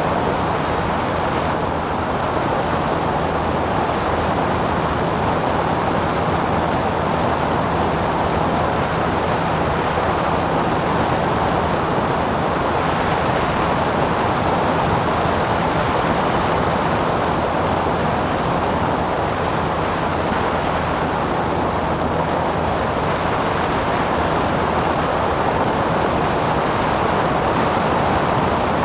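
Cessna 177 Cardinal's four-cylinder Lycoming piston engine and propeller running steadily in flight: a constant low drone with rushing air noise.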